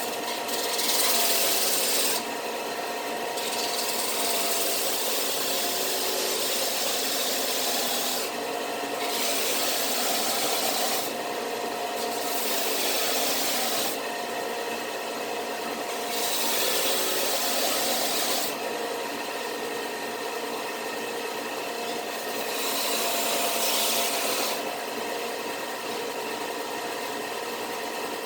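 A woodworking power tool's motor running steadily while wood is pressed into it again and again. A rasping surge lasts a second or a few seconds each time, about six times.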